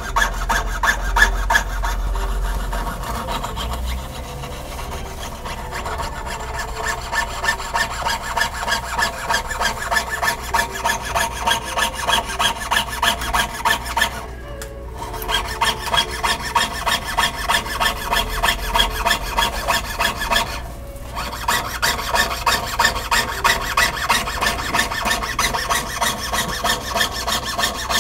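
Jeweler's saw blade cutting through a small sheet-metal pendant on a wooden bench pin, a steady run of rasping back-and-forth strokes. It stops briefly twice, about halfway through and again about three quarters of the way through.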